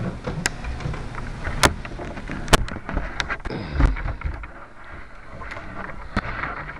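Handling noise picked up by a small camera mounted on a model plane's fuselage as the plane is carried: three sharp clicks and knocks in the first few seconds, then a low rumble of rubbing and bumping about four seconds in.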